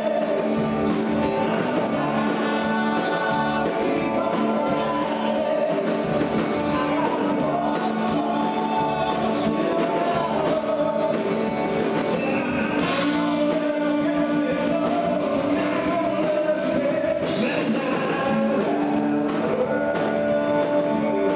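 A country-rock song with a singer, guitar and full band, cutting in abruptly and playing at a steady level.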